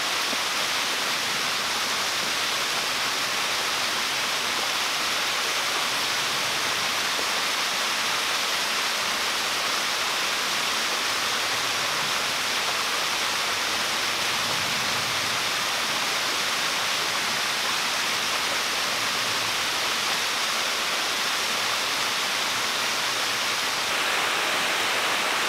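Waterfall and its shallow, rocky stream rushing in a steady, even roar of falling and running water. Near the end the sound steps up slightly in level as the recording moves closer to the base of the falls.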